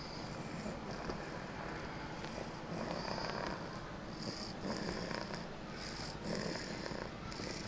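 A sleeping child snoring, with a run of raspy, hissing breaths about once a second.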